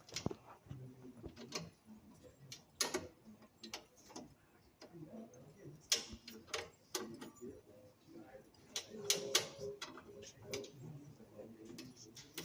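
Irregular clicks and knocks of metal parts being handled and fitted on a Jet belt sander, a dozen or so sharp taps at uneven spacing, some in quick pairs.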